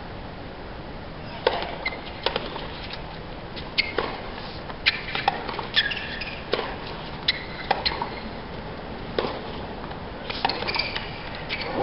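Tennis rally on a hard court: sharp racket strikes on the ball and ball bounces, a knock every half second to second or so, starting about a second and a half in. Short high squeaks of tennis shoes on the court come in among the hits.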